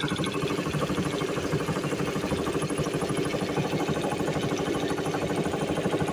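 Air compressor running steadily, with a fast, even pulsing over a constant hum.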